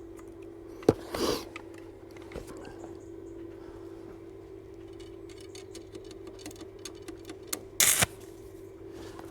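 Metal parts being handled and fitted into place, over a steady hum. A sharp knock comes about a second in, scattered light clicks follow, and a louder short scrape comes about eight seconds in.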